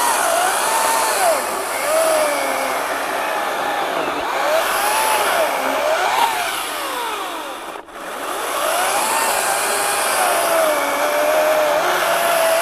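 Ryobi 40V HP brushless 20-inch cordless chainsaw cutting through a wet oak log, its electric motor whine rising and falling in pitch as it slows under load and recovers. The sound breaks off briefly about eight seconds in, then the saw runs and cuts again.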